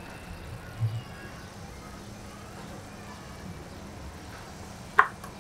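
Steady low rumble of a gas stove burner on high flame under a pan of chickpeas and potatoes cooking in liquid, with one sharp knock near the end.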